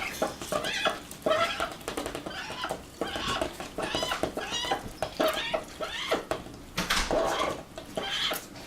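Ducks calling: a steady string of short, wavering quacks and chatter, one call every half second to a second.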